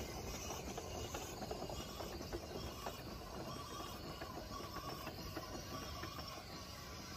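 Three-cylinder Shay geared steam locomotive moving slowly, with a soft hiss of steam and light, irregular clicking and clanking from its running gear.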